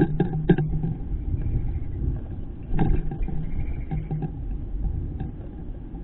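Low wind rumble on the feeder camera's microphone, with a quick run of sharp taps in the first half second and a few more later as a house finch pecks seed from a steel bowl.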